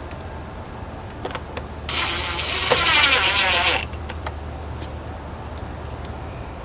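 A car engine cranked by its starter and catching, a loud burst of about two seconds near the middle that cuts off abruptly, over a steady low hum.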